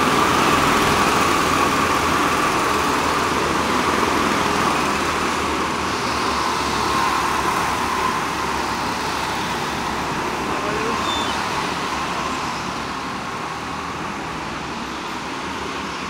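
Several go-kart engines running at racing speed round an indoor track, a steady high engine note that eases slightly over the last few seconds.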